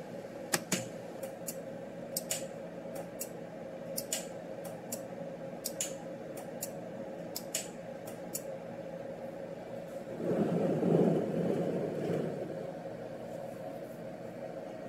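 Heating-element relay from a Zojirushi water boiler, its cover cut open, clicking sharply and irregularly about a dozen times as it switches. About ten seconds in, a couple of seconds of low rustling noise.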